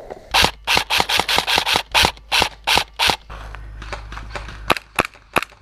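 Airsoft pistol firing a rapid string of about a dozen shots, roughly five a second, followed by a few more single shots near the end.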